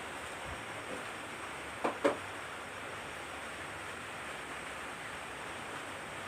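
Forest ambience: a steady soft hiss, with two short sharp sounds close together about two seconds in.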